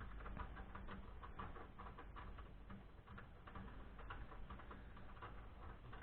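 Faint, irregular small clicks and rattles of a desktop PC's parts being handled and worked loose during disassembly.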